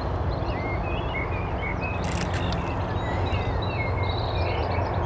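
Small birds chirping and twittering outdoors over a steady low background rumble, with one brief click about two seconds in.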